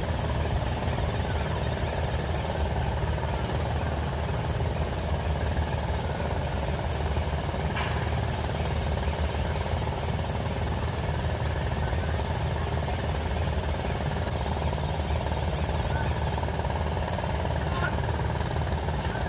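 Heavy engine running steadily with a low rumble, with a faint click about eight seconds in and another near the end.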